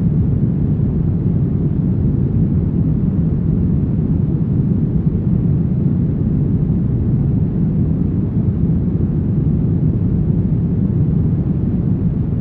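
Brown noise: a steady, deep, even hiss with most of its energy low down and almost nothing in the highs, unchanging throughout.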